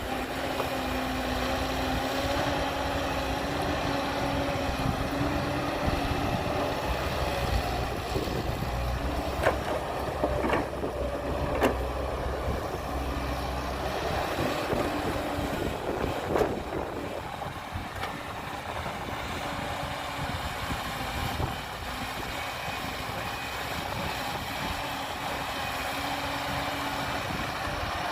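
Diesel engines of heavy earthmoving machinery running steadily, with a few sharp knocks about a third of the way in and again past the middle.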